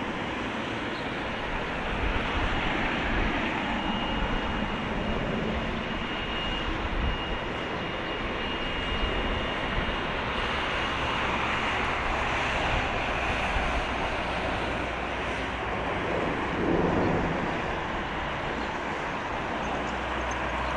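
Boeing 777-200LR's GE90 turbofans running at taxi power, a steady rushing engine noise as the airliner rolls slowly past. A thin high whine holds for several seconds in the first half, and a brief louder swell comes about seventeen seconds in.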